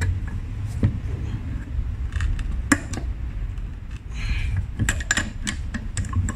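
Metal clinks and knocks of a steel breaker bar and socket working the bolts of an EGR valve assembly on a metal workbench, a few sharp strikes scattered through, over a steady low background rumble.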